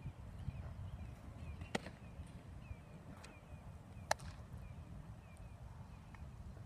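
A baseball popping into a leather catcher's mitt, two sharp cracks about two and a half seconds apart, over a low rumble of wind on the microphone.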